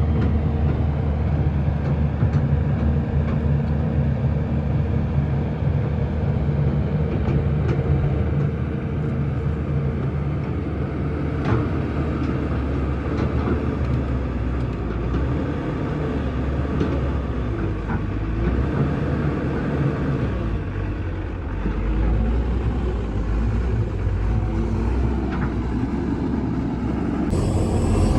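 Heavy diesel engines of a working excavator and dump truck running steadily with a deep rumble, with a few light knocks, the plainest about a third of the way in.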